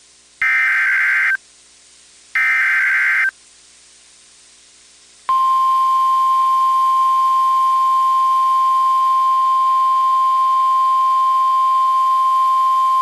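NOAA Weather Radio Emergency Alert System signalling: the last two of three short SAME digital header bursts, each a buzzy data screech about a second long, then about five seconds in the steady 1050-hertz warning alarm tone begins. The tone signals that a new warning, here a severe thunderstorm warning, is about to be read.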